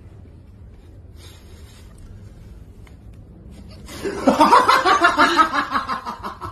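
A person bursting into loud, rapid laughter about four seconds in, fading away near the end, after a few seconds of low background noise.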